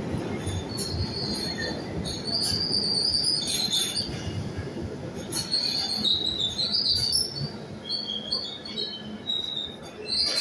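London Underground 1972 Stock train running into the platform and slowing to a stop, with a steady low rumble of the steel wheels on the rails. High-pitched wheel squeals come and go, shifting in pitch, with a few sharp clicks along the way.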